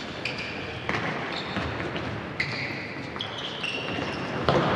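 Futsal being played on a gymnasium's wooden floor: sneakers squeak in short high bursts, and the ball is struck twice, about a second in and again about two and a half seconds in. It all echoes in the large hall.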